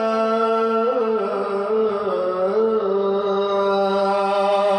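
A male Quran reciter holds one long melismatic note in the ornamented mujawwad style, drawing out the vowel of 'kallā', with slight bends in pitch.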